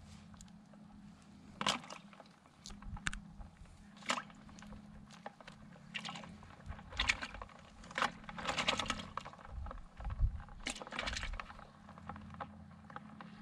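Yabbies being gathered by hand off dry dirt and grass and dropped into a plastic bucket: irregular clicks, scrapes and short rustles, busiest in the second half, over a faint low steady hum.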